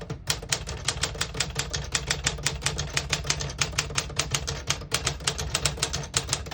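A 1956 Smith-Corona Clipper manual portable typewriter being typed on: a quick, even run of key and typebar strikes, about seven a second, with a light clipping sound.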